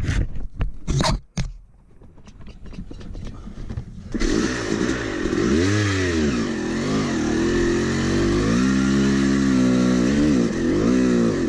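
A few sharp knocks and clatters, then a Yamaha YZ250X two-stroke dirt-bike engine catches suddenly about four seconds in. It is revved up and down a few times, then settles into a steady run, exhausting through an old spare silencer.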